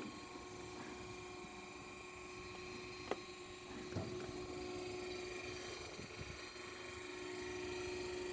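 Band saw machine running with a steady hum, with two short clicks about three and four seconds in.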